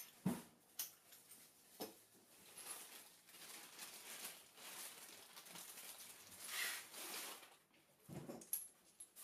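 Faucet parts being handled: a few light knocks in the first two seconds, then the crinkle and rustle of a plastic bag as braided steel supply hoses are pulled out of it, ending in a couple of soft thumps and small clinks.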